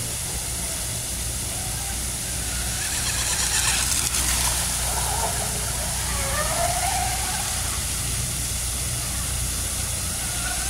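Electric RC boat running across a pond at speed, its motor and hull spray heard from the bank, with a brief rising whine about two-thirds of the way through.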